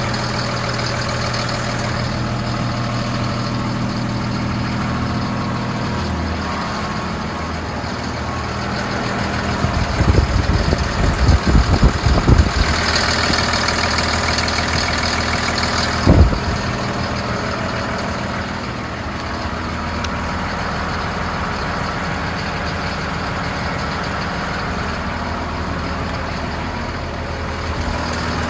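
Caterpillar wheel loader's diesel engine idling steadily. Around the middle, deep uneven thumps and a louder rushing noise rise over it for a few seconds, ending with one sharp knock.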